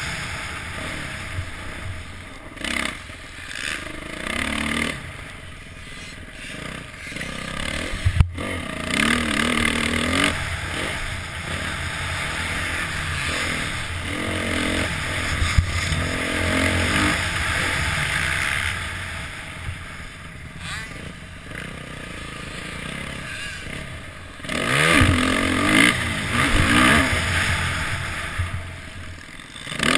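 Motocross bike engine revving hard and easing off over and over as it is ridden round a track, rising and falling in pitch, heard through a helmet-mounted camera with a steady rush of wind noise. It is loudest about ten seconds in and again near the end.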